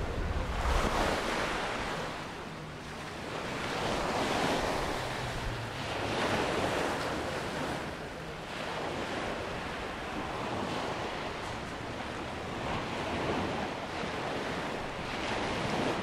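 Sea surf washing onto a sandy beach, the noise of the waves swelling and falling every few seconds. Wind rumbles on the microphone underneath.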